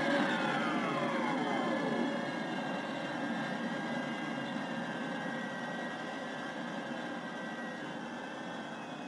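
Sci-fi jet engine sound effect from the Viper model's electronic sound kit. A whine falls in pitch and dies out about two seconds in, then a steady engine hum slowly fades away, like an engine shutting down.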